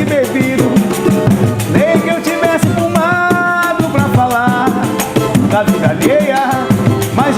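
A samba-pagode band playing live: a voice singing the melody over percussion and a steady beat, holding one note about three seconds in.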